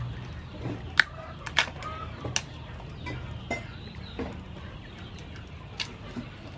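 Live blue crabs being handled in an aluminium basin of water: several sharp clicks and knocks of crab shell against shell and against the metal basin, the loudest about a second in.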